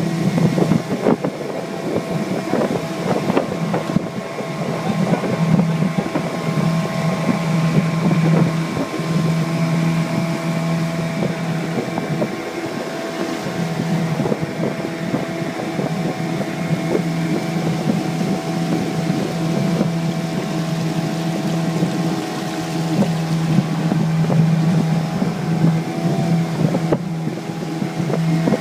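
Mariner 15 hp outboard motor running steadily under way, pushing a jon boat, with wind on the microphone. A few scattered knocks come in the first few seconds, and the engine note dips briefly about halfway through.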